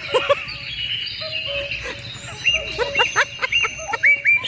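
Birds chirping in many short, quick calls that come thicker in the second half, over a steady high drone.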